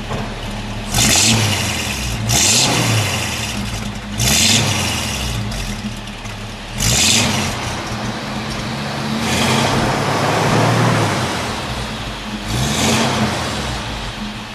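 1948 Chrysler Town and Country's Spitfire 323-cubic-inch straight-eight engine idling between six short blips of the throttle, one of them held longer, heard from the exhaust at the back of the car.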